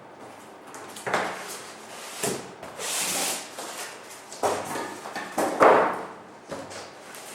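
Cardboard box and packaging being handled while an item is unpacked: scraping and rustling with several dull knocks, one hissy rustle about three seconds in.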